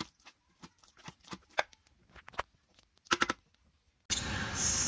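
Wooden spoon stirring thick cooked sambar rice in a stainless steel Instant Pot inner pot, knocking and scraping against the metal: soft irregular clicks, with a quick cluster about three seconds in. A steady hiss comes in near the end.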